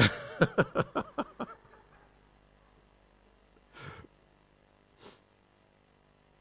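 A man laughing heartily into the microphone: a quick run of about six 'ha' pulses that fades within two seconds, followed by two short breaths.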